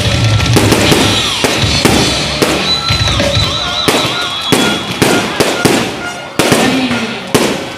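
Aerial fireworks going off in rapid succession: many sharp bangs and bursts, one after another, over a constant crackle.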